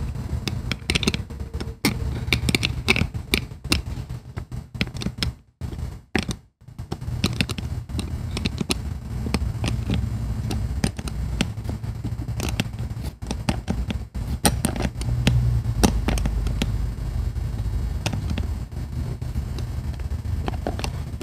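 Many small irregular metal clicks and scrapes of a 10 mm wrench turning the nut down on a sidewall slug, sandwiching the inner and outer slugs over a tire sidewall cut, with a low rubbing of hands on the tire rubber.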